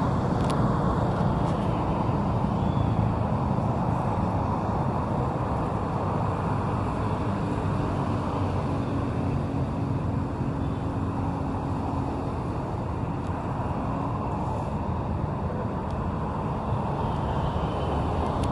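Steady road traffic on a busy city street: the engines and tyres of passing vehicles make a continuous hum.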